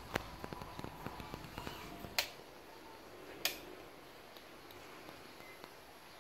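Two cats chewing pieces of fish: a quick run of small clicks and crunches over the first two seconds, then two sharper, louder snaps about two and three and a half seconds in, after which it goes quieter.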